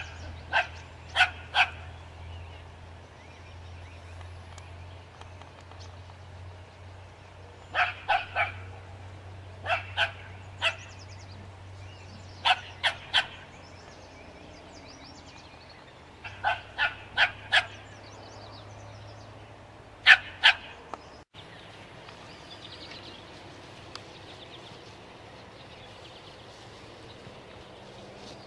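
Small dog barking at a skunk in quick volleys of two to four sharp barks, several seconds apart; the barking stops a little past two-thirds of the way through.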